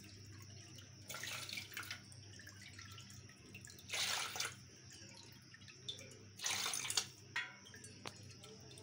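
Water poured from a small steel bowl into a steel pot of whisked yogurt and gram-flour batter, three separate pours about 1, 4 and 6.5 seconds in, each lasting under a second: thinning the batter for kadhi.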